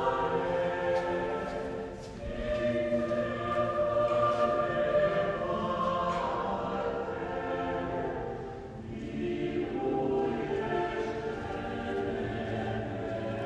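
Recorded choir music, sustained voices singing together, played over a church's sound system.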